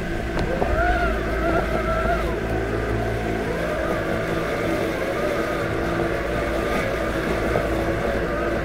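Robotic lawn mower's electric motors running with a steady hum made of several fixed tones; in the first few seconds some of the pitch wavers up and down.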